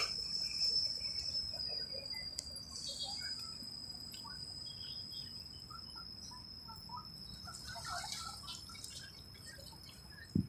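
Faint outdoor ambience: a steady high-pitched whine with scattered small bird chirps over a low background hush. A single sharp click comes near the end.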